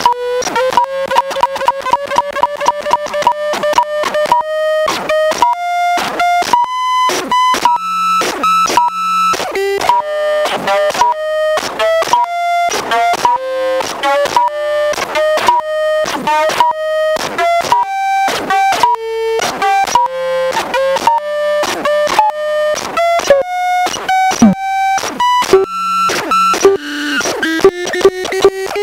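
Homemade modular synthesizer (hEX, Astat and Corvax modules) playing a fast stepped sequence of buzzy, clicking electronic notes. The pitch steps and drifts up and down every few seconds, and a low hum drops in and out.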